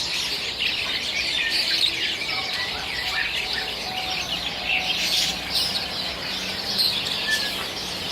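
Many small caged birds chirping and twittering at once, a dense, unbroken chorus of high chirps and trills.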